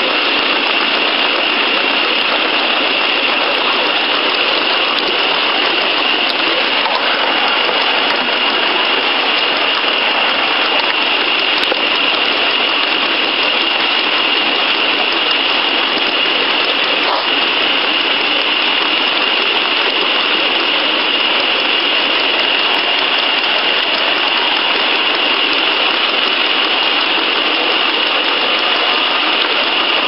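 Steady hissing rush heard on board a miniature live-steam tank locomotive as it runs along the track, with a constant high-pitched tone over it and no separate chuffs standing out.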